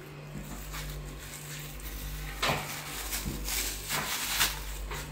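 Plastic bag crinkling and rustling as a wrapped item is handled and set on the metal pan of a mechanical dial scale, with sharper crackles about two and a half seconds in and near the end, over a steady low hum.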